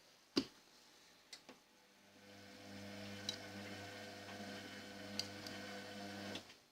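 Indesit washing machine: a few clicks, then a steady electric hum for about four seconds that cuts off suddenly.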